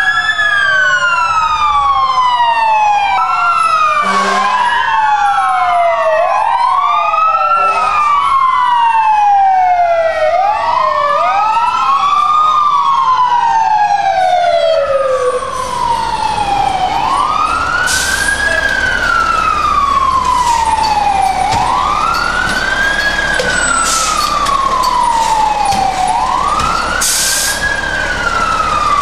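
Fire apparatus sirens wailing. At first two sirens overlap out of step; about halfway through only one remains, rising quickly and falling slowly about every four and a half seconds. There are two short bursts of hiss in the second half.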